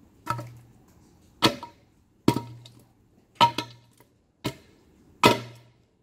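Wooden batten striking a swollen LiPo battery pack on concrete, six sharp blows about one a second, each with a short low ring. It is an attempt to puncture the puffed pack so it discharges and is safe.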